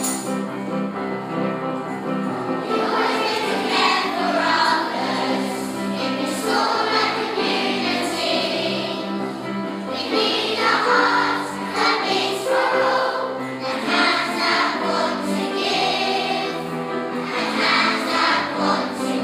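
A song with a choir singing over instrumental accompaniment.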